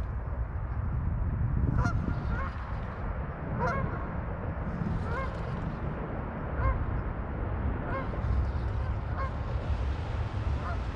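Geese honking: a string of short calls, one every second or so, over a steady low rumble of wind on the microphone.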